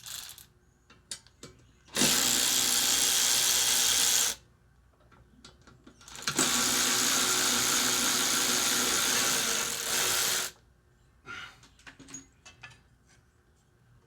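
A handheld power tool, such as a drill, runs in two steady bursts, about two seconds and then about four seconds long, with small clicks and knocks of handling between them.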